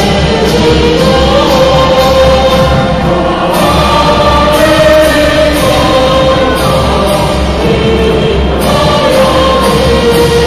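A choir singing a slow, held melody.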